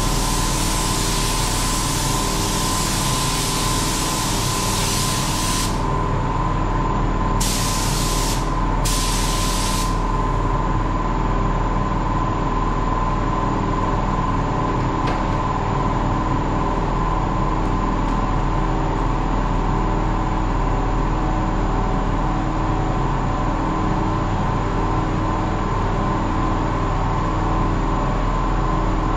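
Compressed-air paint spray gun hissing steadily for about six seconds as the next coat is sprayed on a car bumper, then two short bursts a couple of seconds later. A steady mechanical hum runs underneath.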